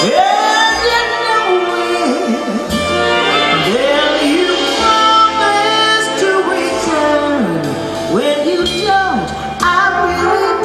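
Live big-band jazz: a woman sings wordless, gliding vocal lines over the band, with double bass underneath.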